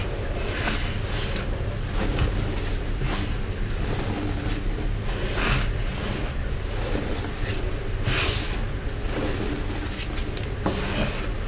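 Gloved hands pressing, rubbing and squeezing crunchy Nexo powder: soft crackling crunches and rustling swishes as the packed powder gives way and crumbles, with a few louder crunches, over a steady low rumble.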